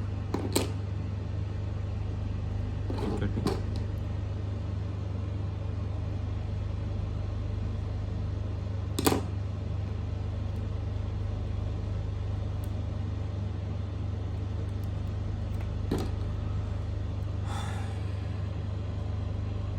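Steady low hum with a few scattered clicks, the loudest about nine seconds in, and a short rustle near the end, from cutting and pulling the outer jacket off a Cat6 network cable.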